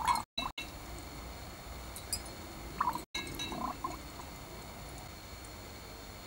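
Small metal lighter parts on wire hooks clinking against a glass jar and stirring in the water as they are lowered in for a rinse, a few light clinks and small splashes near the start and again about three seconds in.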